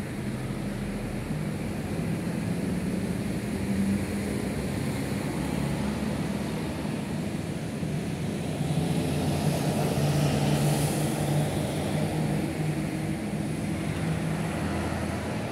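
Engine noise: a steady droning hum that swells louder for a few seconds around the middle, then eases back.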